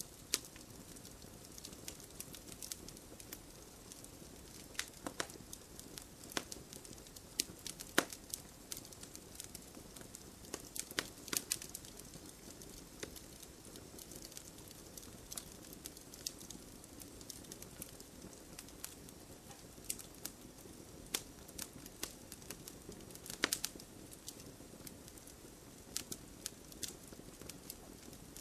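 Campfire burning: a steady low hiss with irregular sharp crackles and pops, a few of them markedly louder snaps.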